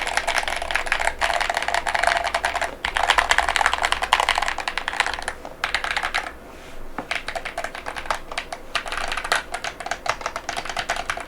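Fast typing on an Epomaker RT100 mechanical keyboard with Gateron Beer switches and transparent polycarbonate Cherry-profile keycaps: a dense stream of key clacks with a brief pause a little past halfway.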